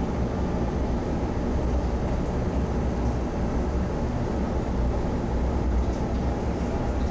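Steady low rumble of background noise, even and unchanging, with most of its weight in the deep bass.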